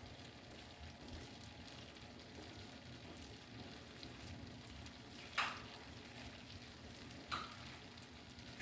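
Butter melting in a hot pan with a faint, steady sizzle. Two brief sharp knocks cut through it, about five and seven seconds in.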